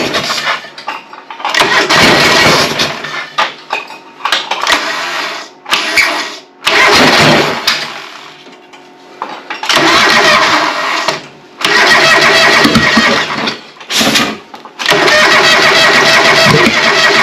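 John Deere 425's liquid-cooled V-twin engine cranking on its starter and catching on brake cleaner sprayed in as starting fluid, firing in short uneven spurts that die away, then cranking and firing again several times; it runs very badly, which the owner puts down to fouled spark plugs.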